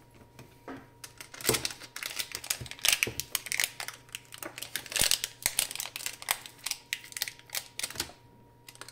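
Plastic packaging of an electrosurgical handpiece being handled: a dense, irregular run of crinkling and crackling, easing off near the end, over a faint steady hum.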